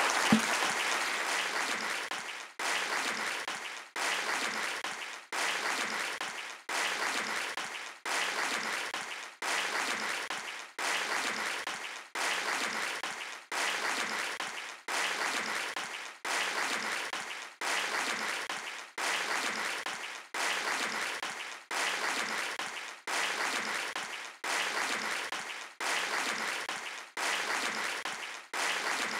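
Audience applause, broken into even stretches about a second and a half long, each fading and then cutting out briefly before the next, at a perfectly regular spacing, like a short piece of applause repeating.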